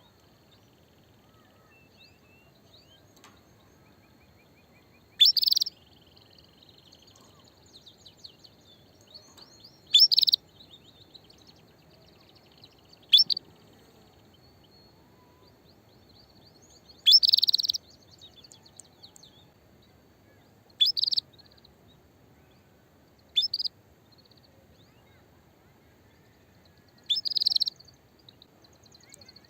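Female canary giving her mating call: seven short, loud, high chirps a few seconds apart, with soft twittering in between. This is the call of a hen ready to breed.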